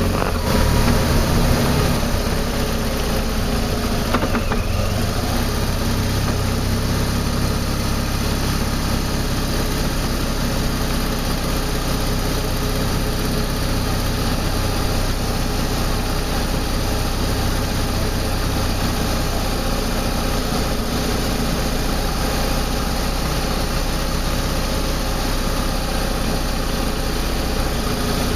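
BMW R1200 GS flat-twin boxer engine running steadily at low road speed, heard through a camera mounted low on the motorcycle.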